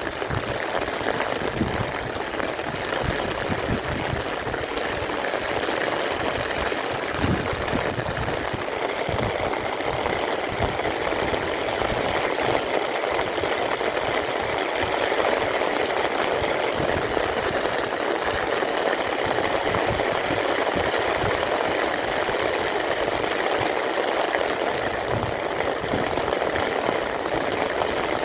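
Steady rain falling, with the even wash of running water.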